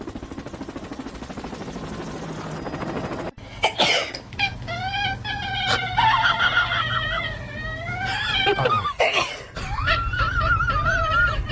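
A rough, rapidly pulsing rasp for about three seconds, then cats vocalising: long, drawn-out meows that slide up and down in pitch, ending in a wavering, warbling yowl.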